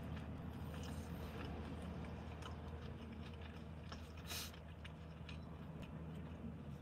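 Quiet chewing of a fried chicken tender, with faint clicks and one sharper crackle about four seconds in from handling food and a foil-lidded sauce cup, over a low steady hum in a car cabin.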